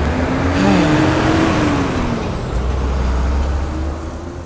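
Street traffic noise with a low rumble. A motor vehicle passes about a second in, its engine pitch rising slightly and then falling away.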